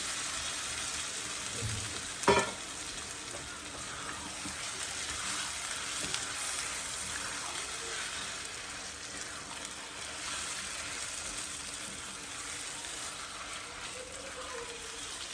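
Tomato, yogurt and spice masala sizzling in oil in a pan while being stirred: a steady frying hiss, with one sharp knock of the utensil against the pan about two seconds in.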